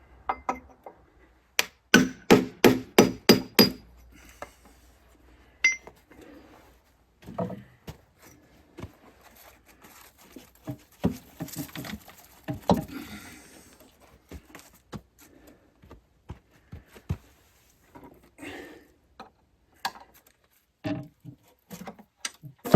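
Metal-on-metal work on a diesel engine's glued-on oil pan: a quick run of about six ringing strikes a couple of seconds in, then scattered clinks and knocks of tools and the pan as it is worked loose from the block.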